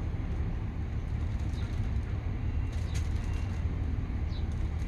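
Steady low rumble of strong wind, with a few faint light ticks scattered through it.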